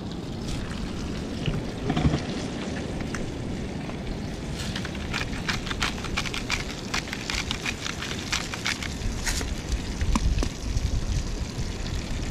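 Whole tailor frying in oil in an open pan on a portable butane stove: a steady sizzle, with a dense run of crackling pops through the middle. A knock about two seconds in.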